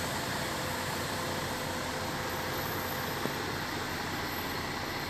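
Hyundai HD320 tanker truck's diesel engine running steadily, heard from inside the cab, with one light click about three seconds in.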